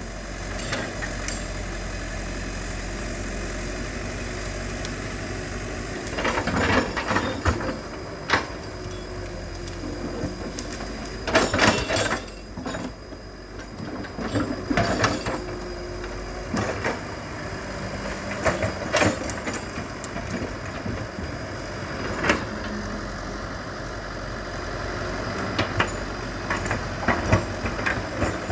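Excavator diesel engine running steadily, with irregular sharp cracks and knocks every few seconds as it works.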